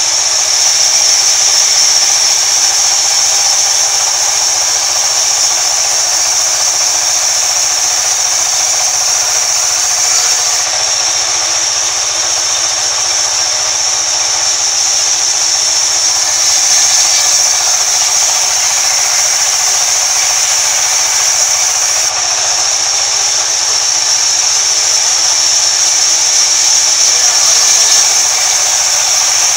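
Sawmill band saw running steadily with its blade cutting through wood: a continuous loud, high-pitched whine and hiss.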